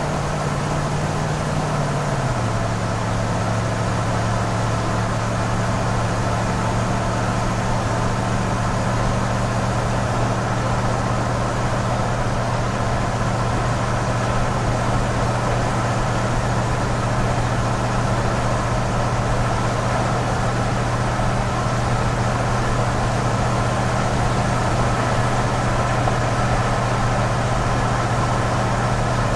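Cargo van engine idling steadily; about two seconds in the idle settles a little lower, then holds.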